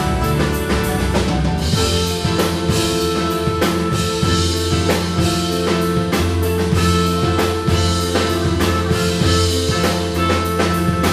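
Live band music: a drum kit keeps a steady, fast beat under held, sustained instrumental notes.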